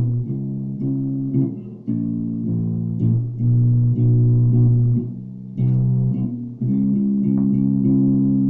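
Ibanez Jumpstart four-string electric bass played, a line of plucked notes changing every half second to second, with some held for a second or more near the middle and end. It is recorded on a phone and sounds thin, with the deepest lows missing.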